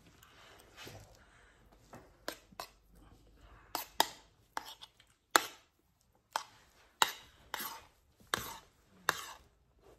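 A metal spoon tapping and scraping against a plate as rice is scooped up for spoon-feeding, about a dozen sharp clicks at uneven intervals.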